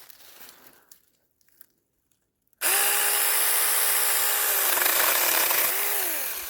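Saker mini cordless electric chainsaw starting suddenly after a couple of seconds of near silence, its motor whining steadily as the chain saws through a tree limb. The whine briefly dips and picks up again, then winds down with falling pitch at the end.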